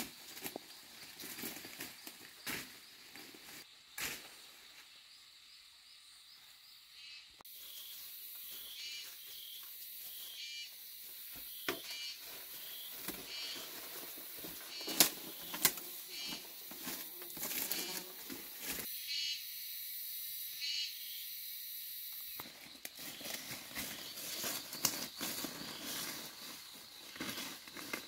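Rustling and sharp snaps of leaves and twigs as someone moves through dense undergrowth, over a steady high chirring of insects.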